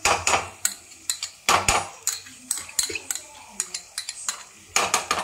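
A metal spoon scraping and clinking against a small glass bowl and the rim of a frying pan as a thick sauce is scraped out into the pan: an irregular run of sharp clinks and scrapes, several louder ones near the start, around a second and a half in, and near the end.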